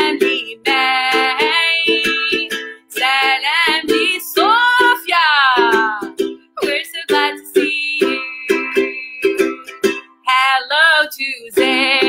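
A woman sings a children's song, accompanying herself on a ukulele strummed in a steady rhythm, with long held and gliding sung notes.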